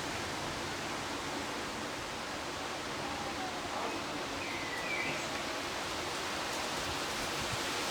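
Steady hiss of heavy rain during a thunderstorm.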